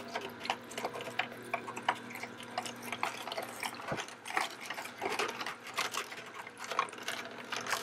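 Vertical slow (masticating) juicer running as it crushes carrots and beets: a steady low motor hum with many irregular crunching clicks from the vegetables.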